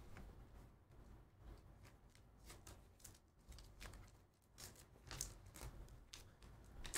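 Near silence: room tone with faint scattered clicks and rustles of hands handling things, and a few sharper ticks about five seconds in.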